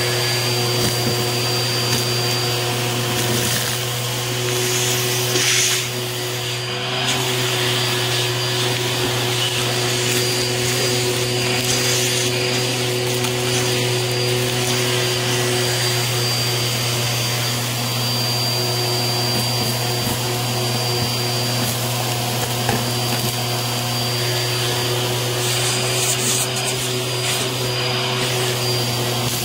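Bissell vacuum cleaner running steadily, its crevice tool on the hose sucking up fluff, paper bits and gritty dirt, with an irregular crackle and rattle of debris being drawn up the hose over the steady motor hum.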